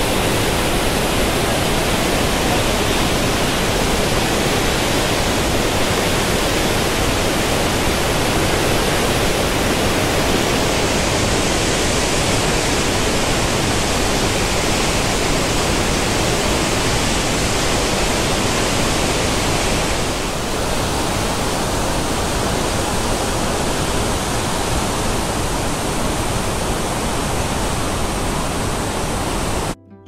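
Loud, steady rush of a large waterfall close by, the Middle Falls of Letchworth State Park, with no pitch to it; it drops slightly in level about two-thirds of the way through.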